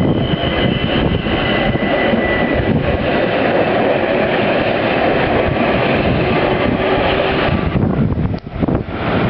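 ÖBB electric multiple unit passenger train arriving and running past close by: a steady rolling noise of wheels on rails, with a faint high whine during the first few seconds. The noise drops away about eight seconds in as the last car passes, leaving wind on the microphone.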